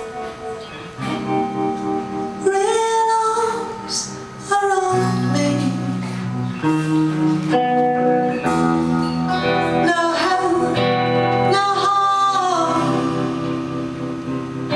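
Woman singing a slow ballad live into a microphone, with piano and cello accompaniment.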